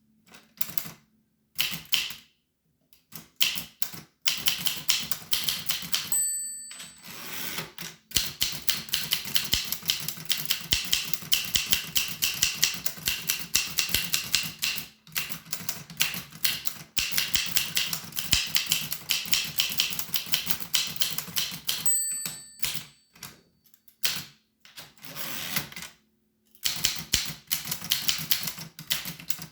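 1895 Williams No. 1 typewriter being typed on: runs of fast key strikes broken by short pauses. Its line-end bell dings twice, at about six seconds and about twenty-two seconds in, each time just before a pause in the typing.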